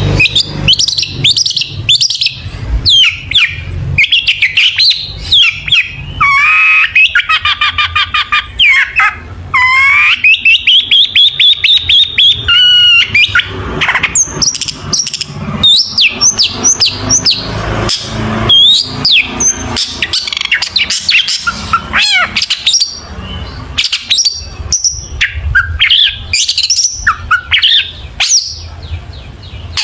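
Long-tailed shrike (cendet) in full song: a long, varied run of quick chirps, rapid repeated notes and whistles, with a long rising whistle about a third of the way through. The song is packed with mimicked calls of other birds, the 'isian' that keepers prize.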